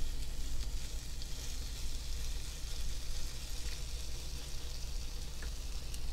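Chaffle batter of egg and shredded cheese sizzling steadily on the hot plate of a Dash Mini Waffle Maker, with a few faint clicks.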